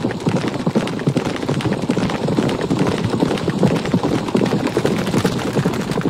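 A herd of horses galloping: many hoofbeats overlapping into a dense, continuous clatter on the ground.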